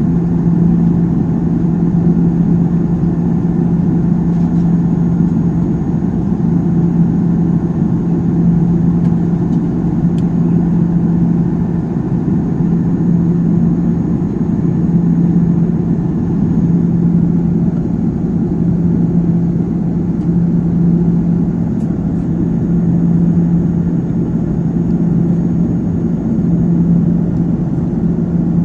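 Steady cabin drone of an airliner in flight: engine and airflow noise with a strong, steady low hum that swells and fades slightly every few seconds.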